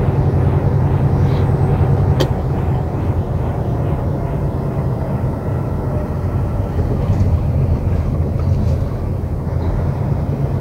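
Steady low rumble of engine and road noise from the vehicle being filmed from as it drives slowly along the highway, with one sharp click about two seconds in.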